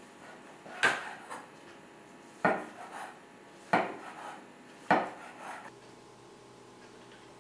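Kitchen knife cutting through a fresh bolete mushroom and knocking on a wooden cutting board: four sharp knocks over about four seconds, each followed by a softer scrape of the blade and slices. The cutting stops for the last couple of seconds.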